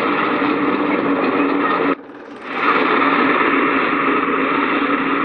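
SR-N6 hovercraft's gas turbine and propeller running with a steady whine. About two seconds in the sound cuts out abruptly for under a second, then swells back.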